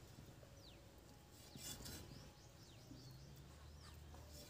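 Faint birds chirping in short, falling calls several times over, with a light scrape of a knife cutting chicken on a wooden stump about a second and a half in.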